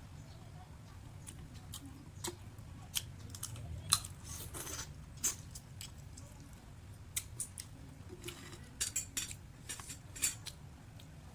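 Close-up eating sounds of a person eating sun-dried leas hal, a Cambodian sun-dried clam snack: irregular sharp clicks and cracks with chewing between them, over a low steady hum.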